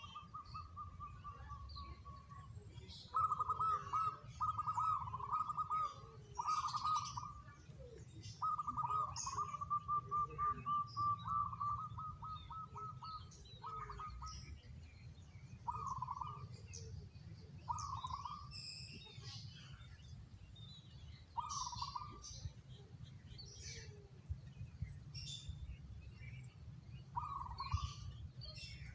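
Zebra dove (perkutut) cooing: rolling, trilled coo phrases, coming one after another through the first half and then as single coos every few seconds.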